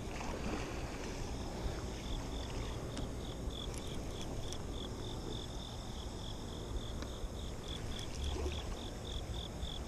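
An insect chirping steadily in short, evenly spaced high-pitched pulses, about three a second.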